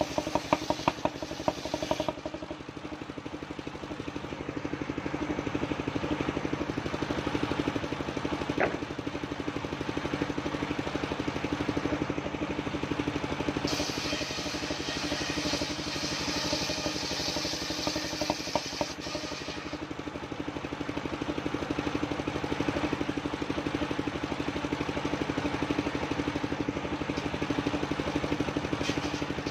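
Engine of a mobile circular sawmill running steadily. Near the start and again for about five seconds midway, a louder, hissing whine with some clatter rises over it, as the saw blade cuts through old coconut-palm wood.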